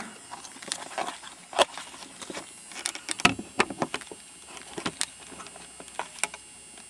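A series of irregularly spaced sharp clicks and clatters from hard objects being handled, loudest about one and a half and three seconds in.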